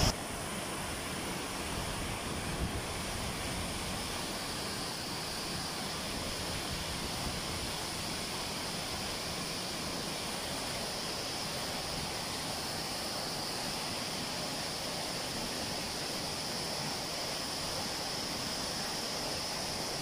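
Steady rush of Wachirathan waterfall and the white water below it, falling and tumbling over rock.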